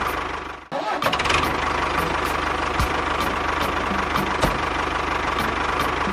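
Small motor of a DIY model tractor running steadily with a constant hum, cutting out sharply for a moment under a second in and then carrying on.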